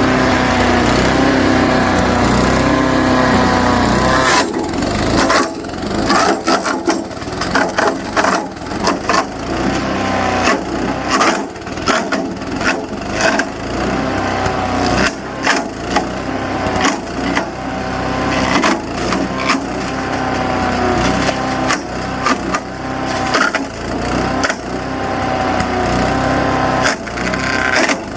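SuperHandy 7 HP wood chipper shredder running. Its small gas engine holds a steady note for about four seconds, then branches are fed in and chipped with rapid, irregular cracking and crunching of wood. The engine's pitch sags and recovers again and again as the rotor pulls the wood in under load.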